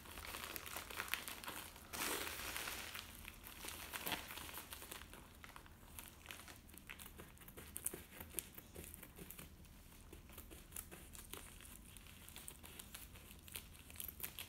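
Padded plastic mailer crinkling and crackling as it is cut open along its top edge with scissors, in irregular quiet snips and rustles.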